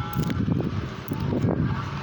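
Street noise: a steady low traffic rumble, with wind on the microphone and a few small clicks.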